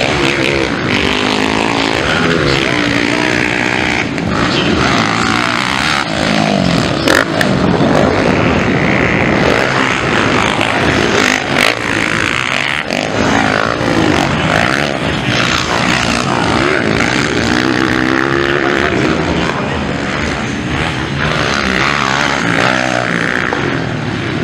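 Motocross dirt-bike engines revving hard as the bikes race round the track, the pitch repeatedly climbing and dropping as the riders open and close the throttle.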